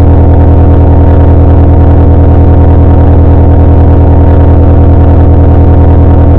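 Loud, distorted, low-pitched buzzing drone, steady and unchanging, with a fast regular pulsing inside it.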